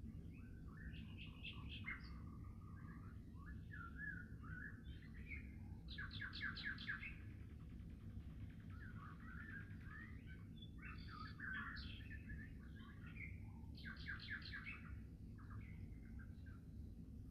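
Faint songbirds singing in varied, overlapping phrases, with bursts of rapid trills about six seconds in and again near fourteen seconds, over a steady low rumble.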